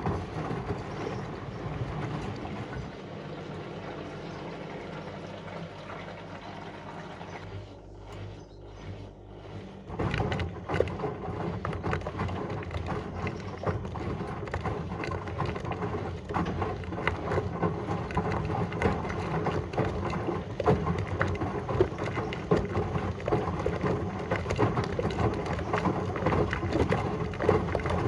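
Whirlpool washing machine running with water balloons in the drum: a steady hum at first, then about ten seconds in it grows louder into a dense wash of water sloshing with rapid knocks and rattles.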